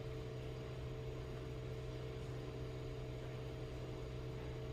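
A steady hum with a fainter higher tone above it, over a soft even hiss.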